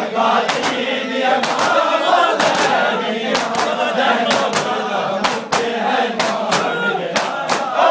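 A crowd of men chanting a mourning lament in unison while beating their bare chests with their hands (matam). The hand slaps land in pairs about once a second, keeping the rhythm of the chant.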